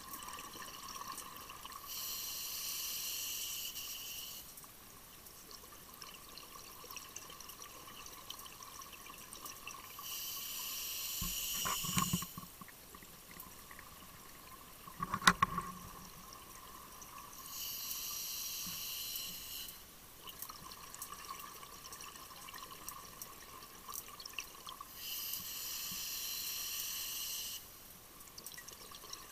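Scuba diver's regulator underwater: a hissing, bubbling burst of exhaled air about every seven to eight seconds, four in all, over a steady faint whine. Two sharp knocks fall between the second and third bursts.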